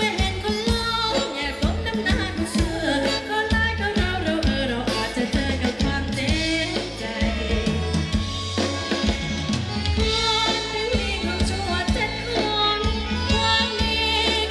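Live band playing Thai ramwong dance music: a singer over drum kit and bass with a steady beat.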